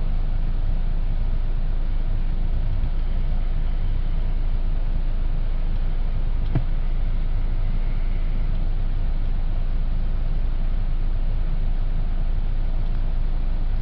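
2012 Buick Verano's engine idling steadily, a low, even hum heard from inside the cabin, with one light click about six and a half seconds in.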